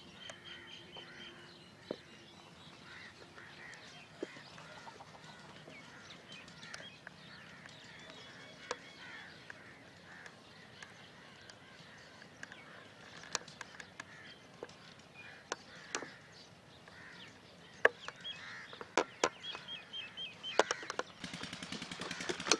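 Faint rural outdoor ambience with birds calling now and then. Sharp clicks come more often in the last several seconds, and a steady, rapid pulsing noise sets in just before the end.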